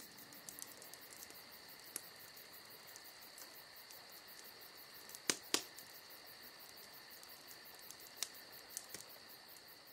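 Faint campfire ambience: a wood fire crackling, with a few sharp pops about five seconds in and again near the end, over crickets chirping steadily.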